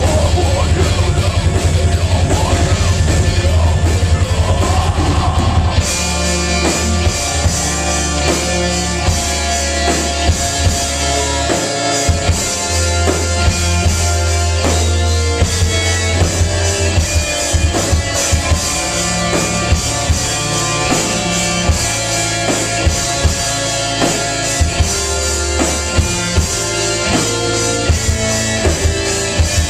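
A live rock band plays: electric guitars, electric bass, keyboard and a drum kit. About six seconds in, the full drum kit comes in with cymbals and a regular beat.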